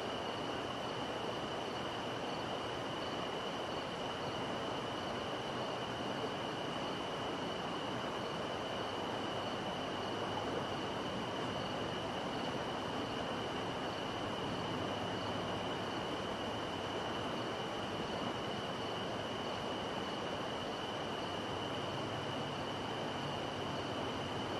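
Steady night-time outdoor ambience: an even low rumble with a constant high insect trill and a faint, evenly repeated chirp above it.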